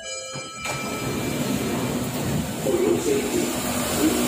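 Singapore MRT train running into an underground station platform: a loud, steady rushing noise that swells in about half a second in and keeps building. Before it, a brief steady tone cuts off sharply.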